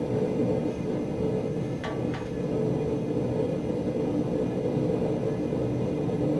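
Steady low rumble of a running propane gas forge, with two short clicks about two seconds in.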